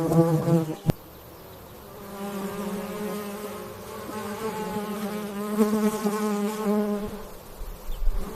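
A bee buzzing close up: a droning hum that cuts off with a click about a second in, then starts again about a second later at a slightly higher pitch and carries on.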